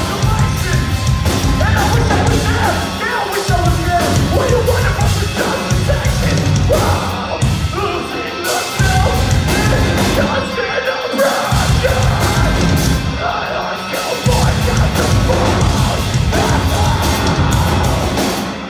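Metalcore band playing live through a venue PA: heavy distorted guitars, bass and drums with shouted, screamed vocals. The heavy low end stops and restarts several times in a stop-start rhythm.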